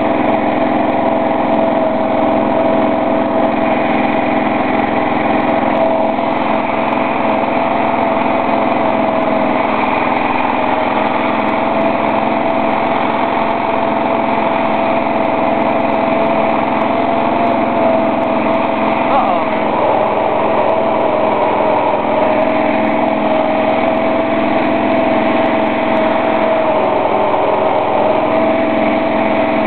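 Engine of a 1982 Simplicity lawn tractor running loud and steady at a constant speed, after being started from sitting unused for a while.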